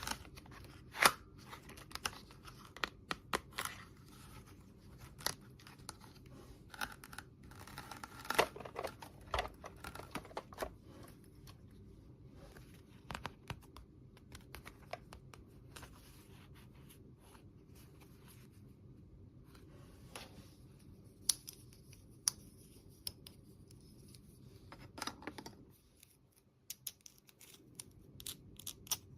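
Hands handling small plastic toy pieces and packaging: irregular light clicks and taps with short stretches of rustling and tearing.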